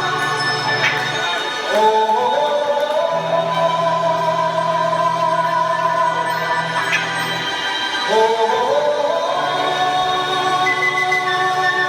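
Wrestler entrance music played over a PA: choir-like singing in long held notes over a low steady drone, the pitch climbing in steps twice, about two seconds in and again about eight seconds in.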